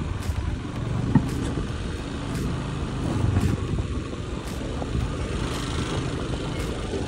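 Engine and road noise of a vehicle being ridden in: a steady low rumble, with one sharp knock about a second in.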